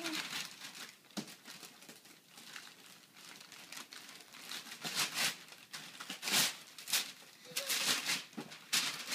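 Wrapping paper being torn and crinkled as a Christmas present is unwrapped, in irregular rustles that grow louder in the second half.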